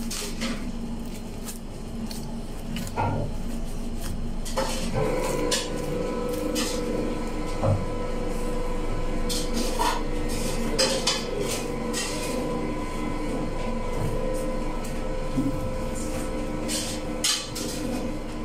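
Butcher's knife cutting and scraping meat from a carcass on a wooden block, with irregular sharp clicks of metal on bone, block and steel mesh glove. A steady machine hum comes in about four and a half seconds in and runs on under the clicks.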